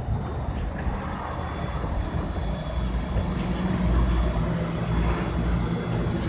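LADOT DASH battery-electric city bus standing close by, giving a steady low hum and rumble that swells slightly midway, mixed with street traffic.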